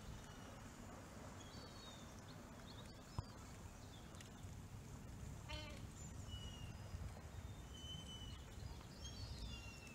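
Faint outdoor ambience: a low rumble with several short, high bird calls scattered through it, a quick trill of notes about halfway through, and one sharp click.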